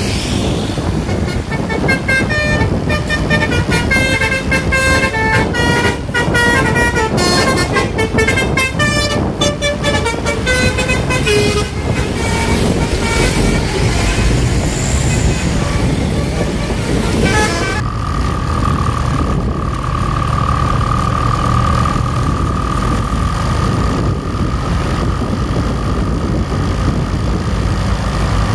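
Bus telolet musical air horn playing a fast tune of short notes jumping up and down in pitch, which thins out about halfway; about two-thirds in it switches to one long steady horn note. A steady low rumble runs underneath.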